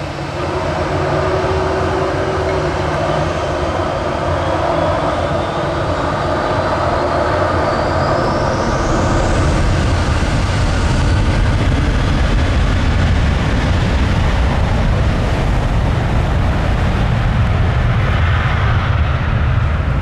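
Boeing 737-800's CFM56 turbofan engines spooling up to takeoff thrust as the airliner starts its takeoff roll. A deep, steady jet rumble grows louder, and a whine rises steadily in pitch from about six to ten seconds in.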